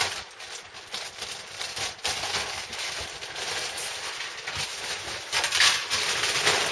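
Thin clear plastic bag crinkling and rustling as a large plastic model-kit sprue is pulled out of it, loudest about five and a half seconds in.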